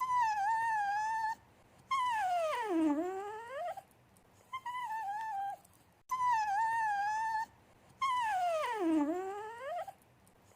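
Dog whining in an attention-seeking, coaxing way: a short high wavering whine, then a longer whine that slides down in pitch and back up. The sequence comes twice.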